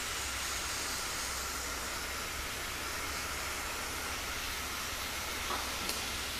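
Garden hose nozzle on its mist setting, spraying a steady hiss of fine water over a painted panel. Two faint clicks near the end.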